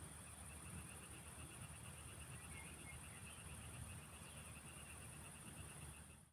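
Faint evening chorus of frogs and insects calling: a steady high-pitched insect trill and a faster pulsed trill lower down, over a low rumble. The sound cuts off suddenly at the very end.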